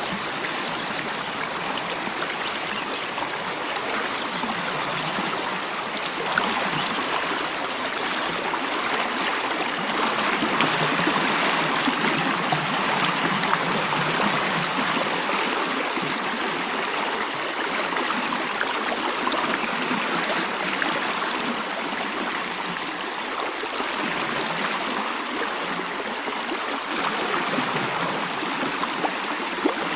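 Mountain stream flowing steadily: a continuous rush of water that swells and eases slightly.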